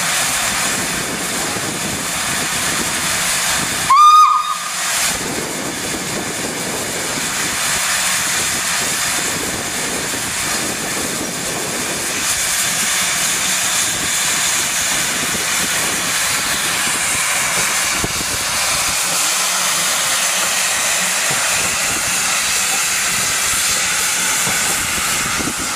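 Small saddle-tank steam locomotives working a freight train: a steady hiss of escaping steam, with one short whistle blast about four seconds in.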